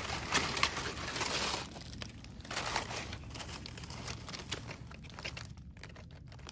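Dry forest leaf litter rustling and crackling, with small snaps, as mushrooms are gathered from the ground. It is busiest in the first two seconds and softer after.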